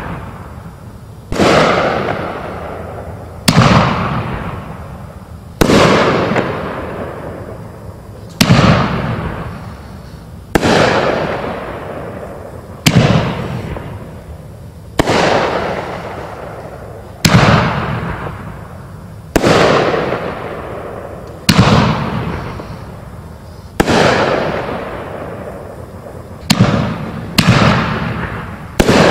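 500-gram aerial repeater cake firing 3-inch shells: loud sharp bangs about every two seconds, each trailing off over a second or two, coming closer together near the end.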